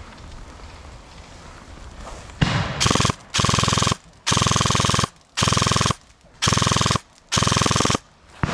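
Airsoft rifle firing about six full-auto bursts, each half a second to a second long with short pauses between, starting a couple of seconds in; each burst is a fast rattle of shots over a steady whine.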